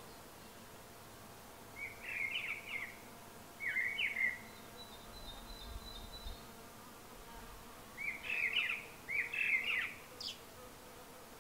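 A songbird singing: short warbling phrases in two pairs with a quiet pause between, over faint outdoor background hiss.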